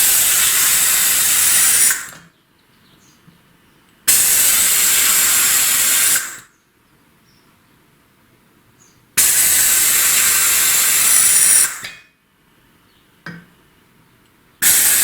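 Compressed air at 7 bar hissing through a venturi-type vacuum tester held against a cylinder head port, in four bursts of two to three seconds each with short pauses between. The hiss is the tester pulling a vacuum to check how well the lapped valves seal.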